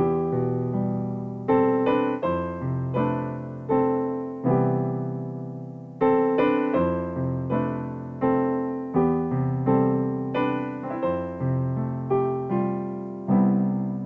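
Gentle piano music: a slow tune of struck notes over chords, each note ringing and dying away, ending on a fuller chord near the end.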